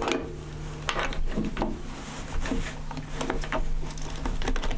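A camera body and zoom lens being handled on a desk: a run of irregular clicks, taps and knocks over a low steady hum.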